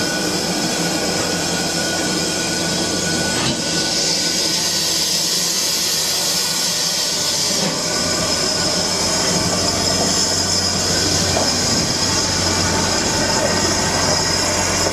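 Ivatt 2MT 2-6-0 steam locomotive hissing steam, a steady loud hiss that strengthens a little about four seconds in, over a low hum.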